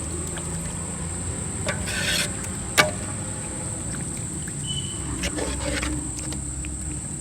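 Insects chirring steadily on one high tone over a low rumble, with a single sharp knock about three seconds in.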